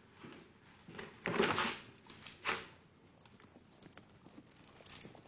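Horse hooves in the street and footsteps, with two short, louder noisy bursts: the first about a second in, the second about a second later.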